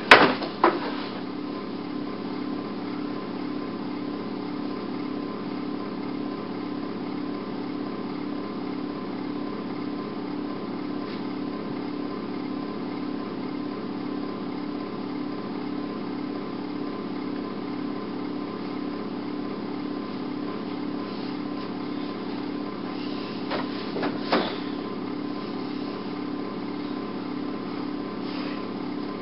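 A small motor running with a steady low hum, broken by a few sharp clicks at the very start and a couple more about 24 seconds in.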